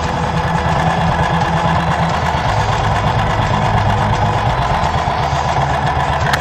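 Motorcycle engine idling with a steady, even low pulsing beat.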